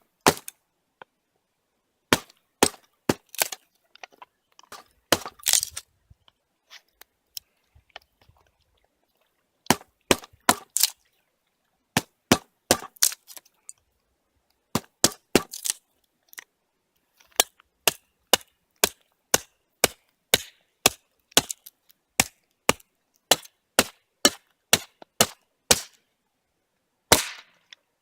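Small hatchet chopping and splitting dry wood: runs of sharp cracking strikes, about two a second, broken by short pauses.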